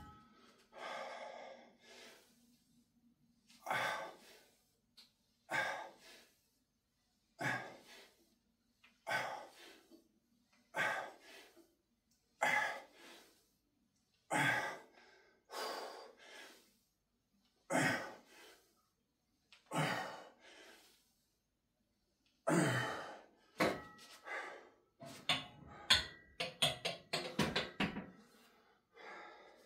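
A man breathing out hard with each barbell squat rep, one forceful exhale about every two seconds, turning to quicker panting near the end as the set tires him.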